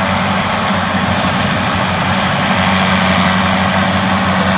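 Kubota DC70 rice combine harvester running steadily under load as it cuts and threshes standing rice: a constant diesel engine drone with dense mechanical noise from the header and threshing drum over it.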